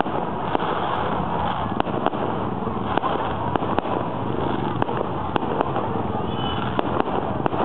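Aerial fireworks bursting continuously: many sharp bangs and crackles at irregular intervals over a steady rumble.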